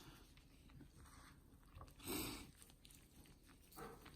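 Faint soft, wet sounds of smoked brisket being pulled and shredded by hand, with one brief louder noisy rush about two seconds in and a smaller one near the end.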